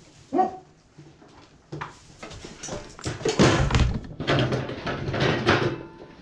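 Scuffling and knocking as a Boer goat kid is caught on a rope lead and struggles, loudest in the second half, with a brief vocal call about half a second in.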